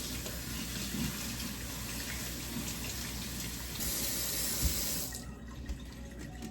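Kitchen faucet running into a sink. The flow gets louder a little under four seconds in, a short thump follows, and the water is shut off about five seconds in.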